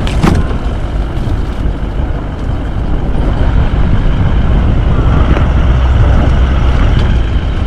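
Four-wheel-drive vehicle running with a steady, loud low rumble and wind noise, and a brief knock right at the start.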